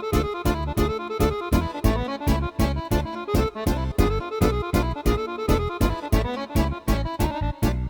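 Yamaha arranger keyboard playing back an accompaniment style: a steady drum beat with bass and a melody over it.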